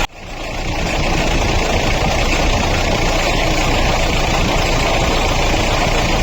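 Mahindra Bolero engine idling steadily with a newly fitted water pump; the engine sound is normal, with none of the noise the worn pump bearing made. The sound drops out briefly at the start and fades back in.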